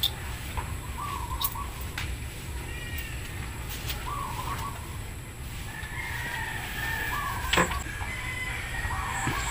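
Chickens clucking in short wavering calls every second or two, with one longer drawn-out call a little past halfway, over a steady low rumble. A few sharp clicks break in, the loudest about three-quarters of the way through.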